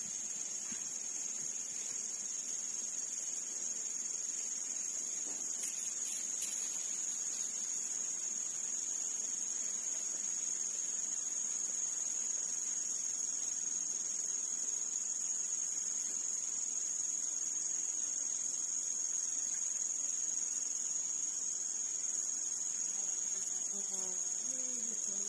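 Insects chirring steadily in two high, unbroken tones.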